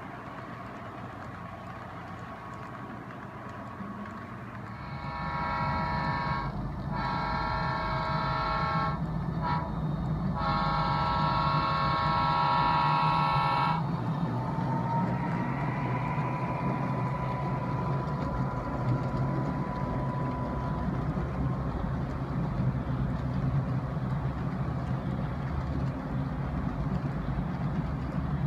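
Diesel locomotive chord horn sounding the grade-crossing signal, long, long, short, long, over the steady rumble of the passing locomotives' engines, from a model train's sound system.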